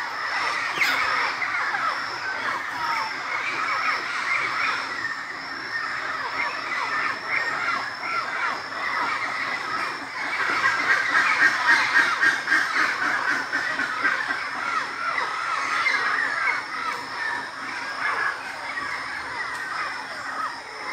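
Pantanal wildlife soundscape: a dense chorus of many overlapping squawking bird calls, busiest and loudest about ten to thirteen seconds in, over a faint steady high-pitched tone.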